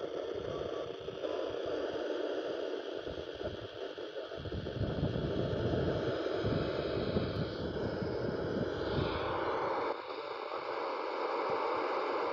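CB radio receiver on 26.865 MHz FM giving out steady static and noise with no intelligible speech, with a rougher, rumbling stretch in the middle.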